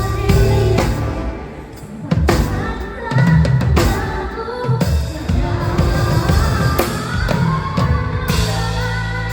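Live pop-band drumming: a drum kit with a Craviotto snare, the snare cracking and rim-shotting over bass drum hits, with the band's pitched instruments and melody playing underneath.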